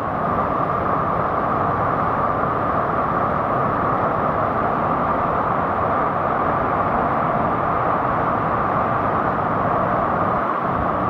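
Waterfall: water falling into a plunge pool, with a loud, steady rush.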